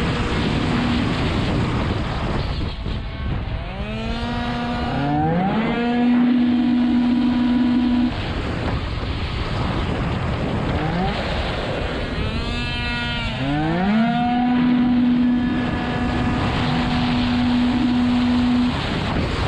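Two-stroke racing scooter engine at full throttle, its note held at one steady pitch by the variator, over wind rush on the microphone. Twice the note drops away as the throttle is closed and then climbs quickly back up to the same pitch.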